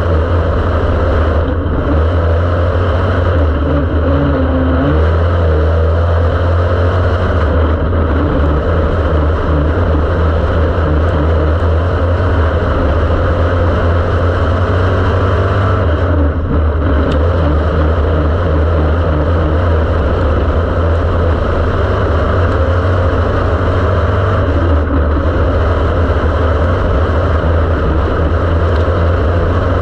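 Dirt-track race car engine running hard under racing load, heard from inside the open cockpit, loud and steady with a few brief dips in its note.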